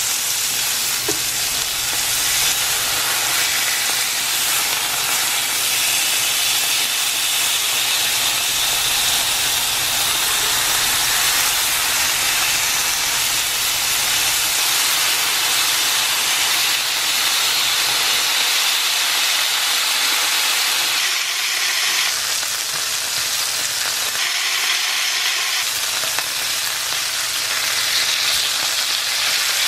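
Ground beef burger patties sizzling on a hot electric grill plate: a steady, dense frying hiss, with a few abrupt changes in its tone in the second half.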